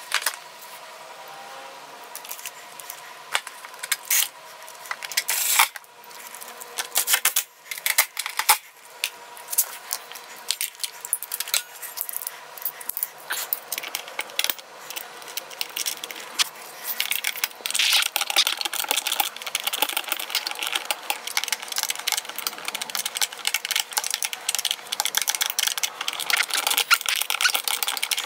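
Hand tools clicking and clinking as the bolts of a mini bike's plastic torque converter cover are fitted and tightened, with the rapid clicking of a socket ratchet. A few separate knocks at first, then near-continuous fast clicking from about a third of the way in.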